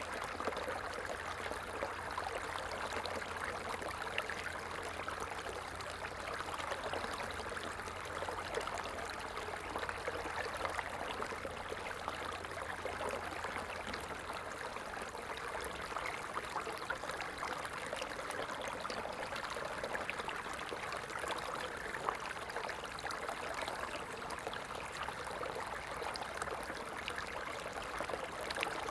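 Small stream flowing steadily over rocks, an even babbling rush of water. A faint low hum underneath stops about halfway through.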